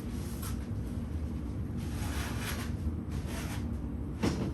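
Rustling as parts of a screen-door repair kit are handled, with a sharp knock near the end, over a steady low hum.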